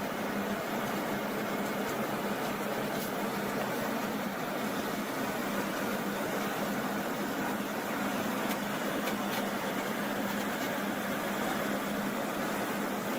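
A steady mechanical hum with even background noise, unchanging throughout.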